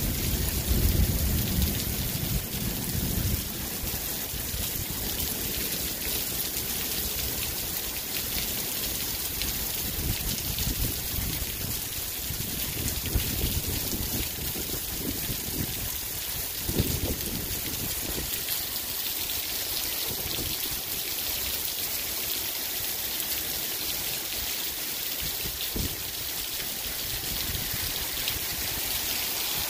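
Steady heavy rain hissing down, with water dripping and splashing off a roof eave. A low rumble runs through the first few seconds, and a sharper knock comes about halfway through.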